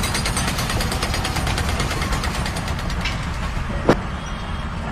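A machine's engine running with a fast, even rattle that fades out about three seconds in, then a single sharp click near the end.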